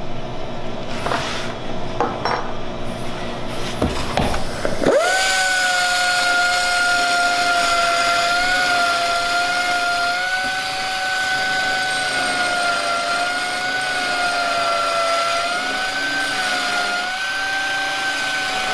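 Dynafile air-powered belt file: a few knocks and clicks of handling, then about five seconds in it starts suddenly and runs with a steady, slightly wavering whine as its abrasive belt grinds the point of a cast bicycle lug.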